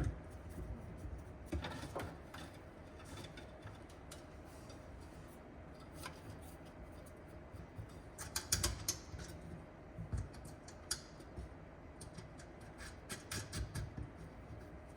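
Scattered small clicks and taps of hand tools against metal parts, with clusters about eight seconds in and again near the end, over a faint steady hum.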